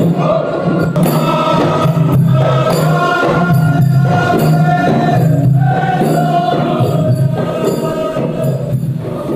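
Traditional Arabian desert music: a chorus of voices chanting together over percussion.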